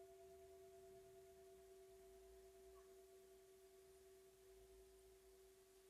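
Near silence with a faint, steady two-pitch tone held throughout, slowly fading a little.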